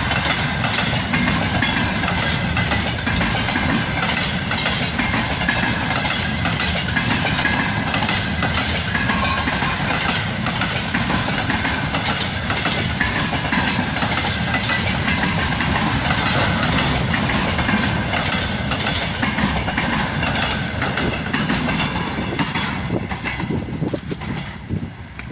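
A freight train's wagons rolling past, wheels clattering over the rail joints in a steady stream of knocks over a rumble, the sound falling away near the end as the train moves off.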